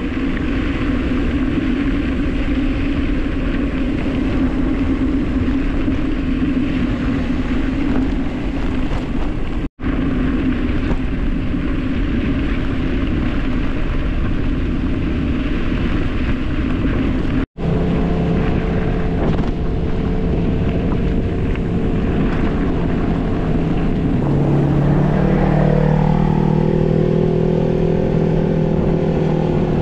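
Wind rushing over the microphone and the rumble of tyres on a dirt descent. The sound cuts out briefly twice, and after the second break a steady hum joins in, its pitch rising and falling for a few seconds near the end.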